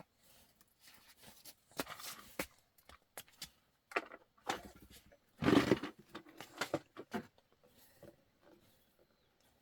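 Irregular knocks, clicks and short scraping or rustling noises from handling things in a small room, with the loudest scrape about five and a half seconds in.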